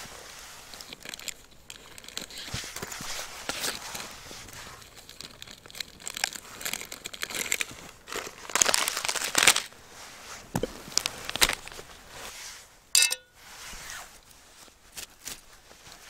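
Crinkling and rustling of plastic packaging and nylon gear bags being handled as cooking gear and food are set out, in irregular bursts, with a single sharp click about thirteen seconds in.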